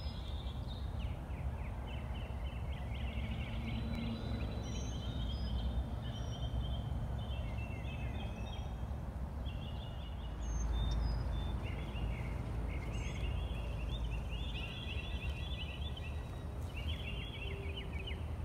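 Birds chirping in short, rapid repeated trills, over a steady low rumble that swells briefly about ten seconds in.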